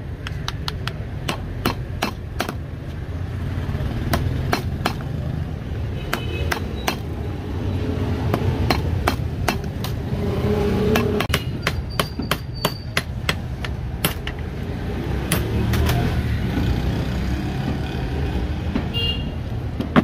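Hammer striking a rusty iron antique padlock held against a bench vise: a long series of sharp, irregularly spaced metallic knocks over a steady low rumble.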